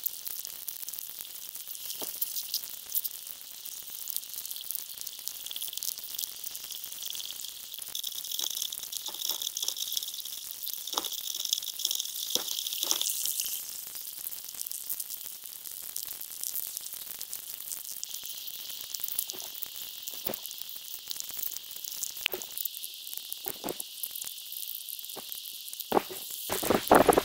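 Underwater coral-reef ambience recorded through a camera's waterproof housing and played at 20 times normal speed: a dense, high sizzling hiss with scattered sharp clicks. A louder rush comes in near the end.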